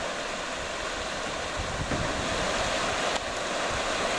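Fast river water rushing steadily over rapids, a continuous hiss.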